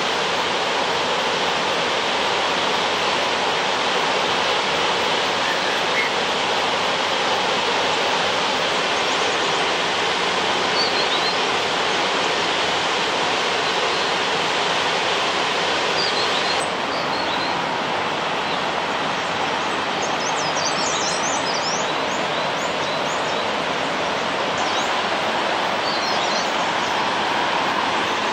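Waterfall plunging, a steady loud rush of water that turns slightly duller a little past halfway, with a few short, high bird chirps in the second half.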